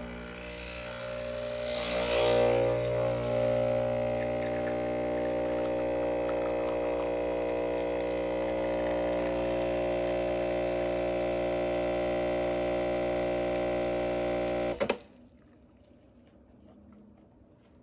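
Breville Barista Express espresso machine's vibratory pump humming steadily as it pulls a double shot of espresso, growing louder and fuller about two seconds in. The pump cuts off suddenly with a click near the end as the shot finishes.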